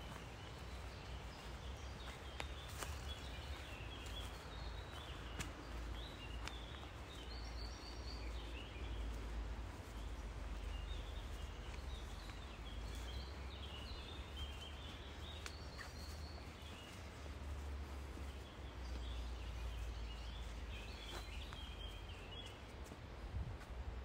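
Small birds chirping and calling in short repeated phrases over a steady low rumble and hiss, with a few faint clicks.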